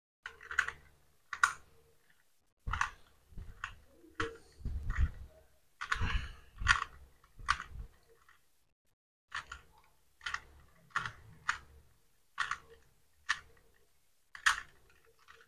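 Plastic 2x2 Rubik's cube being scrambled by hand: its layers turning with irregular clicks and clacks, with a pause of about a second just past the middle.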